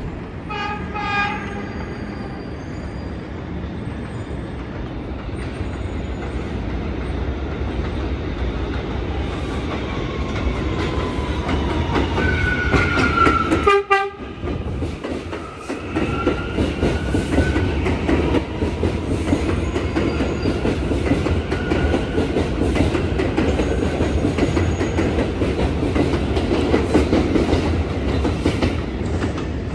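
R179 New York subway cars passing close on elevated track, with steady wheel rumble and clickety-clack over the rail joints. A train horn sounds briefly about a second in, and pitched horn or wheel tones slide around the middle. After a sudden break near the middle, another train runs past.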